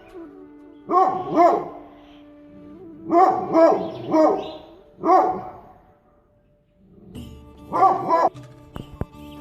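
A dog barking repeatedly, about eight barks, mostly in quick pairs, with a short pause after the middle group. Background music plays underneath.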